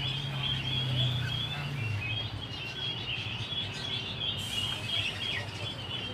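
Many small birds chirping and chattering together without a break, with a low hum under it for about the first two seconds.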